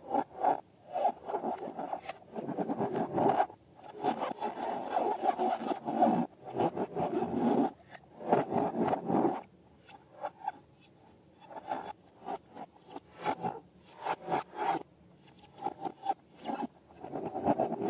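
Rubber balloons being rubbed and squeezed by hand, in rapid rubbing strokes that come in runs of a few seconds. The strokes thin out to scattered ones for a couple of seconds around the middle.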